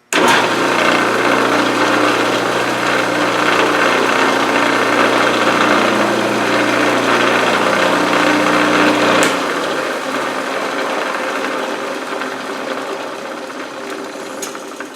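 Drum sander switched on and running with a steady motor hum, spun to dry its freshly cleaned drum. About nine seconds in there is a click, the hum stops and the drum winds down with a fading whir.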